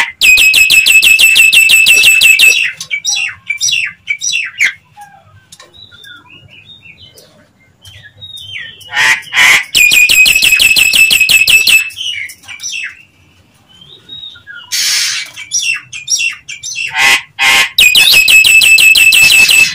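Nias hill myna calling loudly: three long bursts of rapid repeated notes, about six a second, with scattered shorter whistles and squawks between them.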